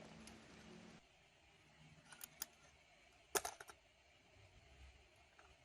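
Faint small clicks and taps of a knife prying the plastic blade (impeller) off a laptop's CPU cooling fan, a couple around two seconds in and a louder quick cluster about three and a half seconds in.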